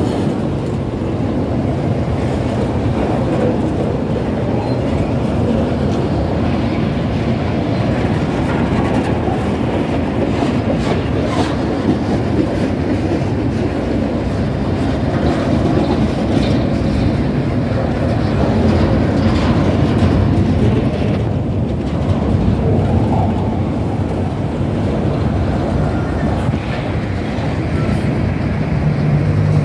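Freight train wagons passing close by: steel wheels running steadily on the rails, with occasional clicks over the track.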